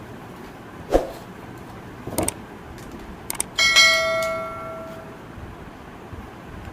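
A few sharp clicks and knocks, then one bell-like metallic ring that fades out over about a second and a half.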